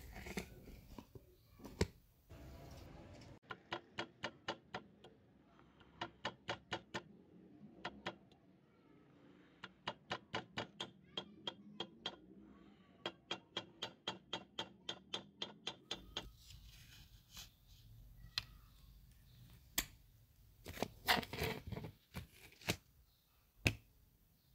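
Small hammer tapping a thin metal rod on an anvil, quick light metallic taps about three or four a second in short runs. Before and after the taps come scattered knocks and handling of a small plastic-and-metal model car chassis.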